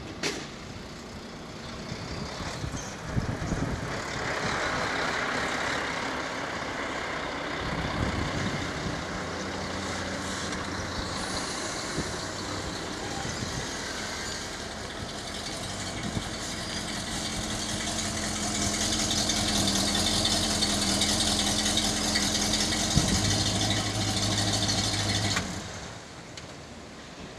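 1972 Cadillac Coupe de Ville's 472 cubic-inch V8 running through a 2.5-inch true dual exhaust with adjustable valves as the car drives up and stops close by, while a truck also passes. Near the end the engine is switched off and the sound cuts off abruptly.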